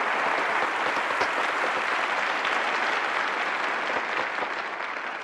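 A large crowd clapping in steady applause, dying away at the end.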